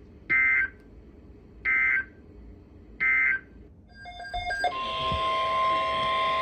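Three short bursts of EAS/SAME digital data screech, evenly spaced, marking the end of a NOAA Weather Radio alert message. A brief stutter of tones follows, then a steady electronic alert tone starts and holds, the NOAA Weather Radio warning alarm tone that comes before a new alert.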